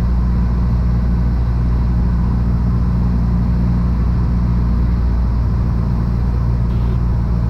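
Cessna 172 Skyhawk's piston engine and propeller droning steadily, a deep even hum, heard inside the cabin in flight.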